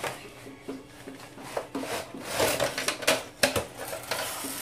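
A gift box's packaging being worked open by hand: rustling, crinkling bursts with several sharp clicks and knocks.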